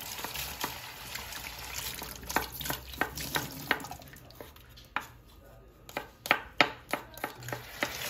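Kitchen knife chopping shallots on a wooden cutting board: a run of sharp, irregular knocks, the loudest near the end, over a soft hiss in the first half.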